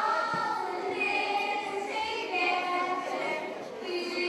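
Children singing together, voices holding notes.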